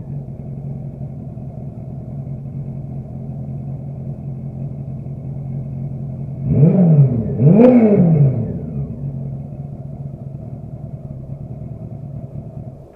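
Motorcycle engine idling steadily, blipped twice in quick succession about halfway through so the pitch shoots up and drops back to idle. The sound cuts off suddenly at the end.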